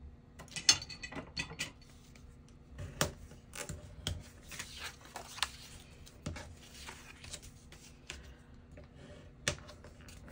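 Kraft cardstock being folded along its score lines and creased flat: scattered short, crisp paper crackles and taps with light sliding rustles, the sharpest about a second in and again near the end.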